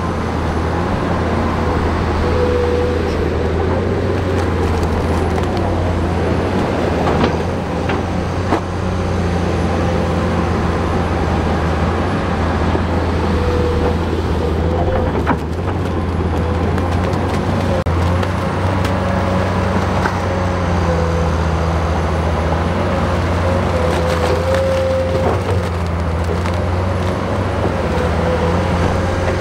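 Bulldozer's diesel engine running steadily, with a wavering higher tone over the low hum and a few short knocks scattered through it.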